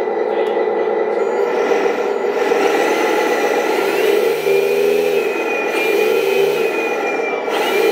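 Simulated truck engine from the sound module of a LESU 1/14 8x8 RC tractor truck. It runs steadily and rises in pitch a few times as it is revved, about halfway through and again near the end. A thin high whine runs alongside it.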